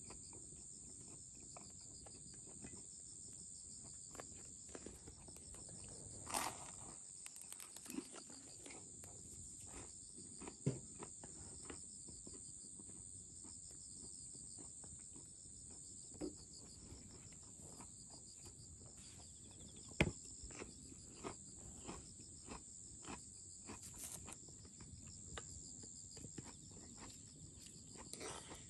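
Steady high-pitched chirping of autumn insects, with scattered small clicks and knocks as food and a dish are handled.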